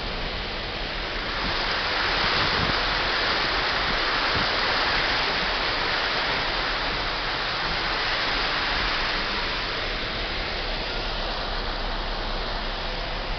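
Water rushing over a dam's spillway weir in a steady rush, swelling louder for several seconds in the middle.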